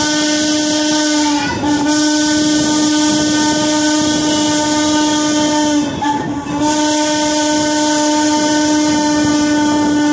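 Steam whistle of Norfolk & Western 4-8-0 steam locomotive No. 475 blowing long, steady blasts, broken only briefly about 1.5 s and again about 6 s in, over the rolling noise of the train.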